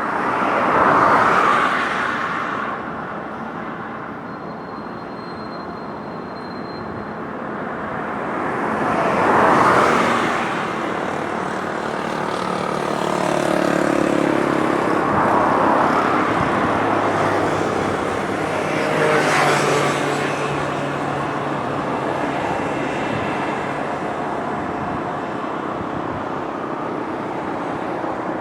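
Road traffic passing close by over a steady traffic hiss: vehicles swell and fade about a second in, near ten seconds, around fifteen seconds and near twenty seconds, with a low engine hum in the middle.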